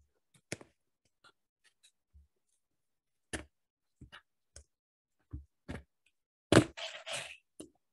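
Scissors cutting through the packing tape on a cardboard box: scattered short snips and clicks, then a louder rasping stretch of cutting near the end.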